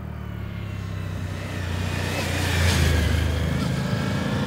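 Motorcycle engine running at a steady note as the bike rides past the camera, growing louder to a peak between two and a half and three seconds in, then easing a little, with a rush of tyre and wind noise at the closest point.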